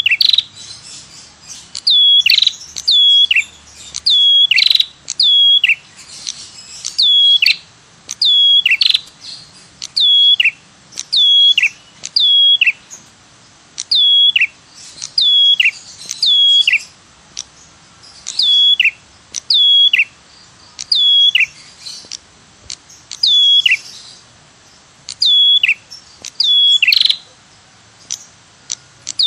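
Red-headed prenjak (ashy tailorbird) calling over and over: short, high whistled notes that each drop steeply in pitch at the end, mostly in quick pairs, the 'tirr tiirr' lure call.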